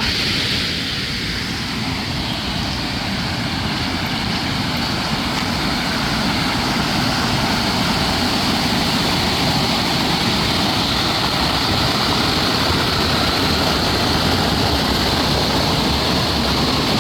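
Steady rush of fast-flowing water, a continuous even noise with no breaks.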